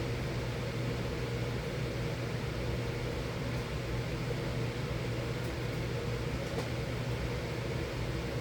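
Miller E3 furnace running: a steady, even hum with a low drone and a rush of air.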